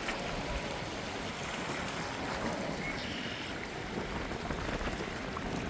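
Steady wind and water noise: wind across the microphone and waves on choppy lake water.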